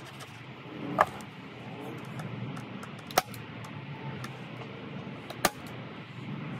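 Three sharp snaps, about two seconds apart, of a hand-powered staple gun driving staples through carpet into a wooden board, over a steady low background rumble.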